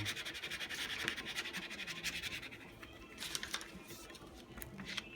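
Plastic credit card scraping over a vinyl decal's pre-mask tape on window glass, squeegeeing the decal down: rapid steady scratching for about two and a half seconds, then a few separate strokes.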